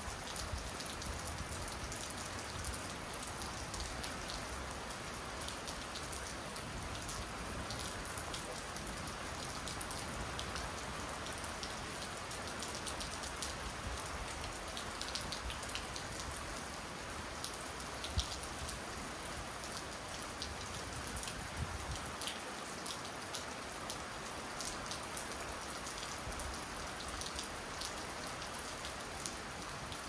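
Steady rain falling, with scattered sharp ticks of single drops striking nearby; one drop lands louder about eighteen seconds in.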